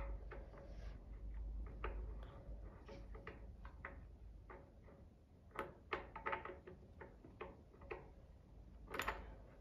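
Ideal Automatic sewing machine's handwheel and clutch knob being turned and screwed back in by hand, giving a string of faint, irregular clicks and ticks, two or three a second, with a louder click near the end.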